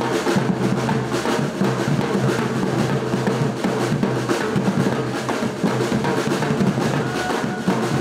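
A drum group beating large strapped-on bass drums with metal shells, played with sticks in a dense, steady beat.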